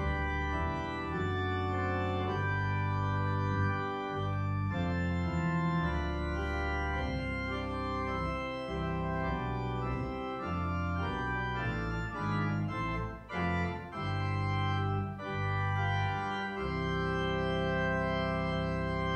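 Organ playing a slow postlude: sustained chords changing every second or two, with a couple of brief breaks past the middle and a long held chord near the end.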